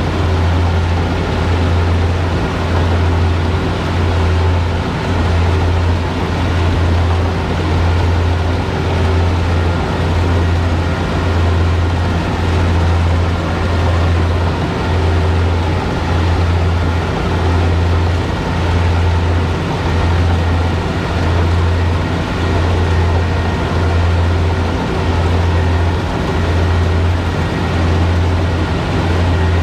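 Kubota DC70 combine harvester's diesel engine running steadily under load, a low drone that swells and fades in a slow regular beat about once every second and a half.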